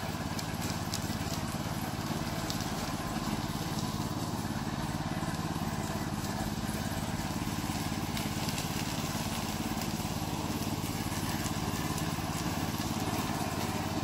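Remote-control slope mower's 9 hp Loncin single-cylinder petrol engine running at a steady speed, an even, unchanging engine hum with no revving.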